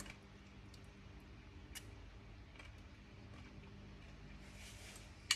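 Quiet eating from a spoon: a few faint clicks and mouth sounds, then one sharp clink near the end, a metal spoon against the glass dessert cup, over a faint steady hum.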